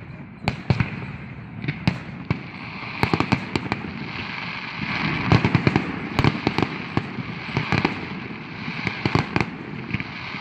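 Fireworks and firecrackers going off: many sharp, irregular bangs and crackles over a steady background rumble. They come thickest about three seconds in and again in a dense run around the middle.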